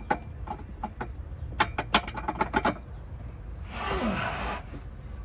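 Light clicks and knocks from tools and parts being handled during hand work, with a quick cluster of them about halfway through. Near the end comes about a second of hiss with a short falling tone, over a steady low rumble.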